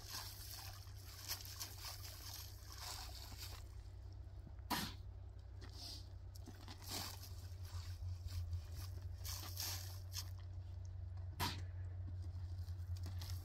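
Steel shovel scooping sand and gravel from a pile and tipping it into a metal wheelbarrow: repeated gritty scraping and crunching, with two sharper knocks, about five seconds in and near the end.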